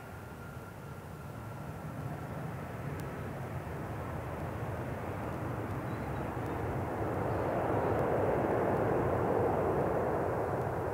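Airbus A320-232 jet engines (IAE V2500) during the landing roll: an even rush of engine noise that swells to a peak about eight seconds in and then eases slightly. A faint high whine slowly falls and fades out in the first few seconds.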